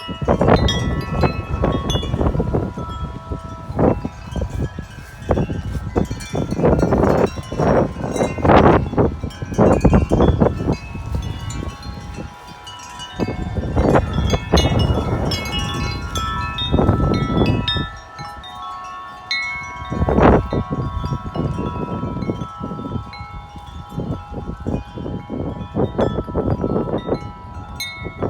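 Wind chimes ringing constantly in strong, gusty wind, many tubes sounding at once, while gusts buffet the microphone with a heavy rumble that comes and goes, easing off briefly twice.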